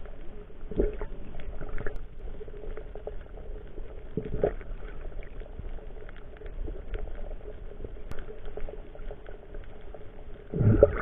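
Muffled underwater water noise picked up by a submerged action camera: a steady bubbling wash with a few dull thumps, about a second in, around four and a half seconds, and just before the end.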